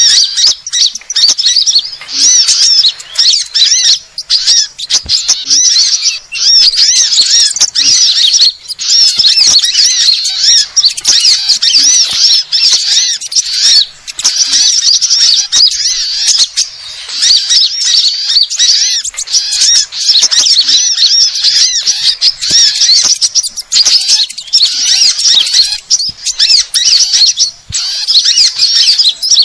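Dense, continuous chatter of many small songbirds, a bird-lure recording (suara pikat) mixing the alarm calls and chirps of several species. Fast, high-pitched chirps and trills run on with hardly a pause.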